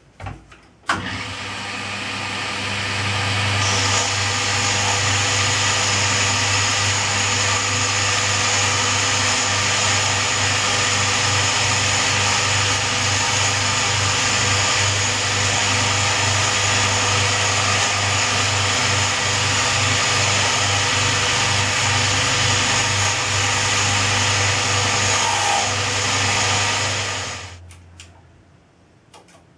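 Milling machine spindle switched on about a second in, building up over a few seconds and then running steadily, with its boring head boring out the inside of a cast smokebox to fit a boiler barrel. The machine is switched off near the end and runs down.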